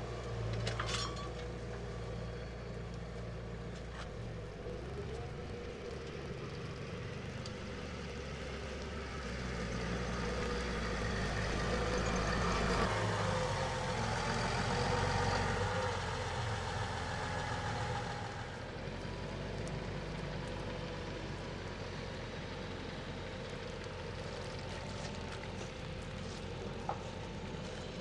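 Massey Ferguson tractor's diesel engine running steadily as the tractor drives past with its reversible plough. It gets louder as it comes close about halfway through, then drops back.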